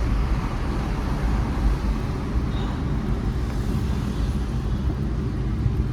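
Steady vehicle and road noise: a continuous low rumble under an even hiss.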